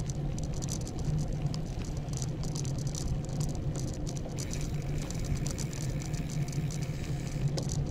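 A bicycle loaded with camping gear rolling along at riding speed: a steady low rumble from the tyres and the ride, with fast, light rattling clicks from the bike and its load.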